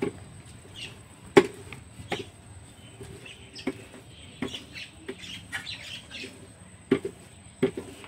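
Irregular sharp knocks and clinks of cooking utensils, about six of them spread across the stretch, the loudest a little over a second in.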